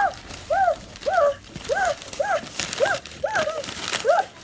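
A series of short high cries, each rising and falling in pitch, about two a second, over sheets of paper bills rustling and crumpling as they are thrashed about.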